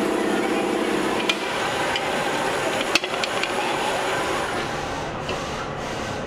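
Steady factory machinery noise with a hum that fades after about a second, broken by a sharp metallic click and, about three seconds in, a louder knock as an aluminium pressure-cooker lid is handled on a press.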